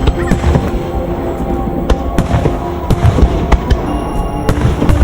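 Fireworks bursting: repeated sharp bangs and crackles over a low rumble, with music playing underneath.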